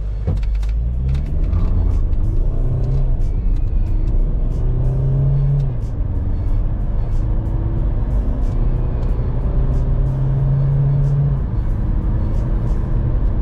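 Volkswagen Caddy's 2.0 TDI turbodiesel four-cylinder under hard acceleration from a standstill, heard from inside the cabin. The engine note rises through each gear and drops back as the 7-speed DSG upshifts, about six seconds in and again near the end.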